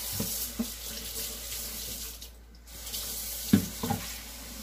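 Kitchen sink tap running, water filling a measuring cup. The flow breaks off briefly about halfway through. Two sharp knocks come near the end.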